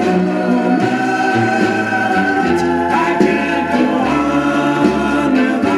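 A vocal group singing held harmonies without words over a moving bass line, played from a record on a Webcor portable hi-fi phonograph.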